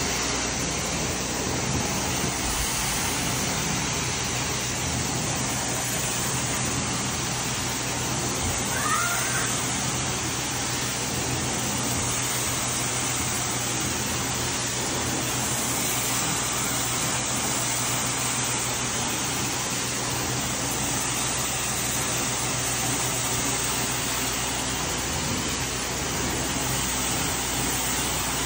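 Hot-water carpet extraction wand drawn over carpet, its vacuum suction a steady rushing with a low hum underneath.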